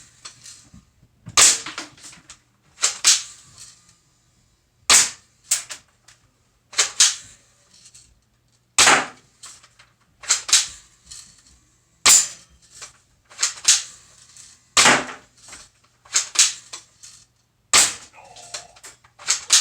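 Airsoft rifle firing single shots one after another, about a dozen sharp cracks each one and a half to two seconds apart.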